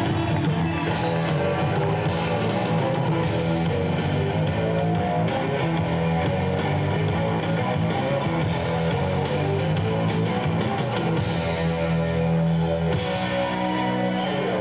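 Rock music with guitar and drums playing steadily over a concert PA, recorded from among the crowd in a large venue.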